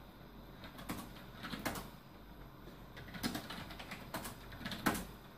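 Computer keyboard keys tapped in short, irregular clusters of clicks as commands are typed at a DOS prompt.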